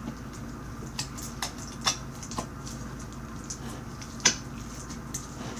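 Slime being handled and squeezed by hand, giving a few scattered short clicks and pops over a steady low hum.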